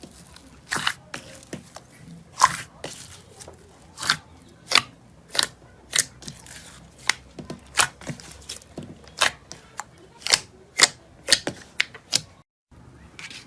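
Slime being pressed and worked by hand, giving a run of sharp, irregular pops and clicks, about one or two a second, with a brief break near the end.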